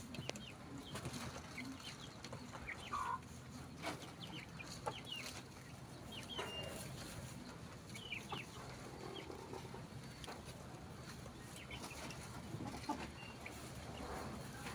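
Chickens clucking in short scattered calls, with a few sharp clicks and a low steady hum underneath.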